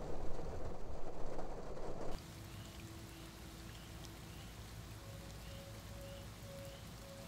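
Low road noise inside a car driving in the rain, cutting off suddenly about two seconds in to a quieter, steady patter of rain falling outside. Over the rain, a faint high chirp repeats about twice a second.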